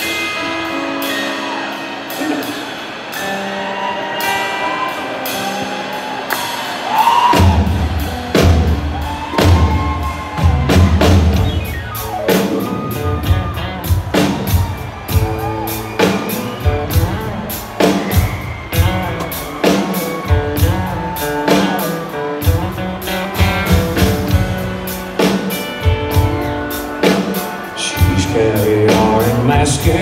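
Live band playing a country-rock song's intro on electric guitar; drums and bass come in about seven seconds in and the band then plays on with a steady beat.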